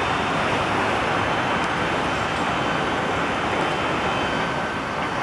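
A 1950s-built former Vestische tram moving slowly over the curved depot tracks: a steady running noise of wheels and motors.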